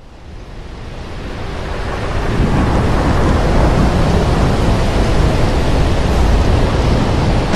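Rough sea and wind: a steady loud rush of heaving waves with a deep rumble underneath, fading in over the first two seconds or so.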